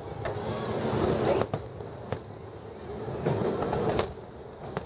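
Fireworks aerial shells bursting: about half a dozen sharp bangs over steady background noise, the loudest about four seconds in.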